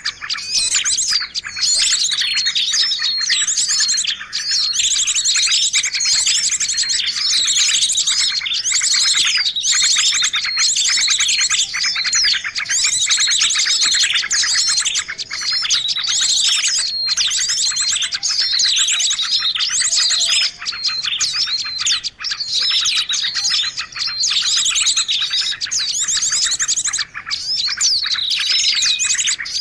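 Bird song for luring birds: loud, high-pitched, fast chirps and trills, nearly unbroken.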